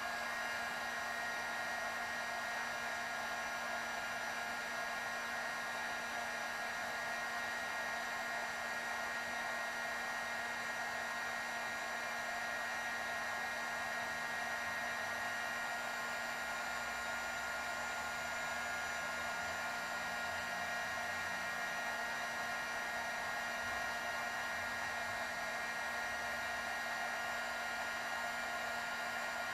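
Electric heat gun running steadily: an even blowing whir with a constant whine.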